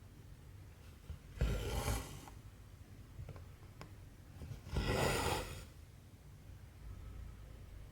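Cotton embroidery thread being pulled through cross-stitch fabric twice, each pull a rasping swish lasting under a second, with a couple of faint needle ticks between the pulls.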